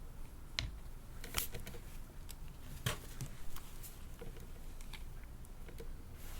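Scattered small clicks and taps of hands handling a plastic fashion doll and its small parts, irregular, with the two sharpest clicks about a second and a half in and about three seconds in.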